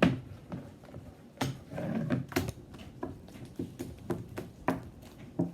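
Scattered knocks and clicks of hard objects being handled on a tabletop, the loudest one right at the start, with a brief rustle about two seconds in.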